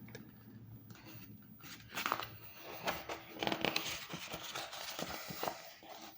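Paper pages of a book being handled and turned, crinkling and rustling in an irregular run of crackles that starts about two seconds in and stops near the end.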